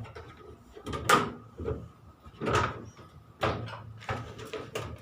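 Washing machine's back cover being lifted off: about four knocks and scrapes of the cover panel against the cabinet, spaced about a second apart.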